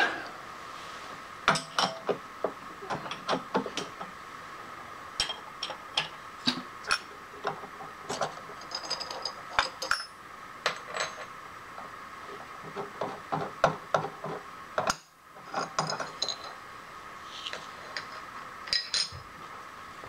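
Metal-on-metal clinks and knocks of tools and parts being handled at a milling machine, an irregular series of short sharp clinks over a steady hum.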